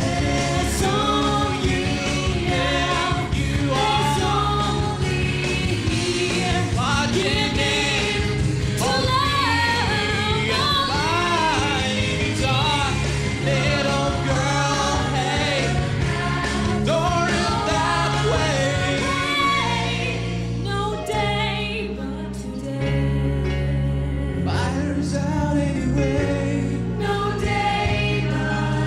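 Female and male singers performing a musical-theatre duet into handheld microphones over backing music; about twenty seconds in the accompaniment changes to sustained low chords.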